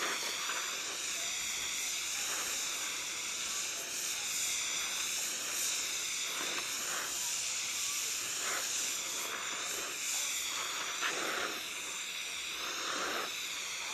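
Gas welding torch flame hissing steadily on a low setting while it heats a soldering copper up to temperature, the hiss wavering slightly.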